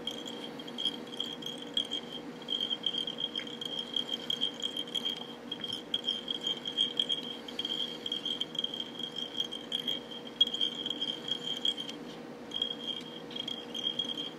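A cricket trilling high and steadily, with a few short breaks, over a faint steady hum. Scattered light ticks come from the thread being wound onto a fly hook from a bobbin.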